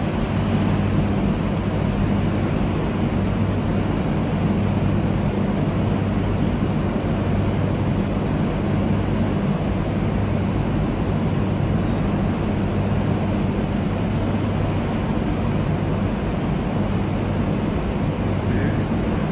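Steady low roar of water discharging through a dam's open spillway gates, with a steady low hum underneath.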